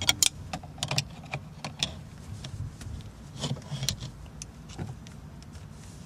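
Flathead screwdriver prying a shifter bushing off the stock shifter linkage of a Mazdaspeed 3: irregular metallic clicks, taps and scrapes as the tool works against the shifter base, over a low steady hum.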